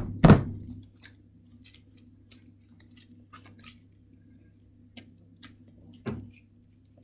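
Homemade slime being squeezed and kneaded by hand, giving small wet clicks and squishy crackles. A couple of heavy thumps come at the very start and another about six seconds in, as the slime is pressed or slapped down on the table.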